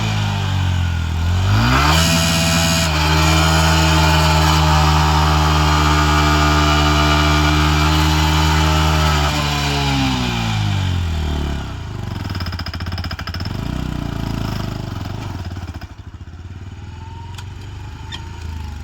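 Motorcycle engine revving: the revs dip, climb sharply about two seconds in and are held steady and high for several seconds, then fall away to a lower, quieter running that fades near the end.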